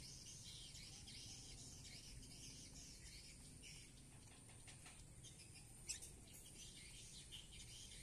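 Lovebirds chattering faintly, a steady run of quick, high-pitched chirps. A single sharp click comes about six seconds in.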